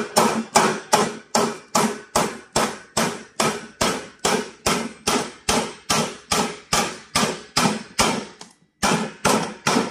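Hammer blows on M8 steel studs welded to a corrugated painted steel roofing sheet, about three strikes a second with a metallic ring after each and a brief pause near the end. The studs are being knocked over to test the strength of the stud welds.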